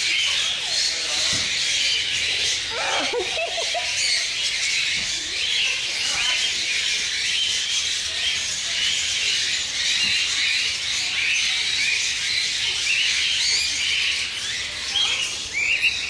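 A flock of budgerigars and cockatiels chattering and chirping nonstop, many birds calling over one another.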